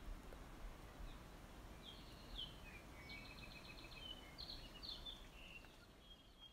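Faint outdoor background noise with a bird calling: a couple of short chirps about two seconds in, a quick trill of repeated notes, then a few more chirps.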